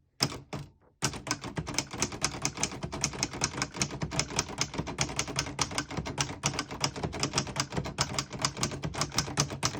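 A 1959 Hermes Rocket manual portable typewriter being typed on. After a couple of keystrokes and a short pause, a fast, steady run of keystrokes begins about a second in, about six a second, as a sentence is typed. The keys strike cleanly, without skipping or sticking.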